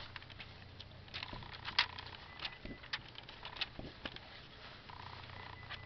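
Paper pages of a thick workshop manual being flipped through by hand: a run of scattered paper flicks and crackles over a faint low hum.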